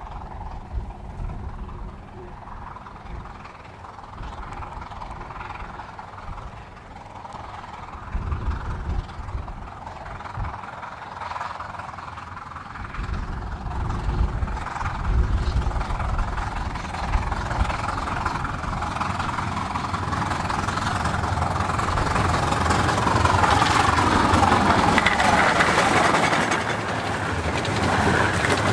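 A 15-inch gauge miniature steam locomotive hauling its train at speed, approaching and growing steadily louder, loudest near the end.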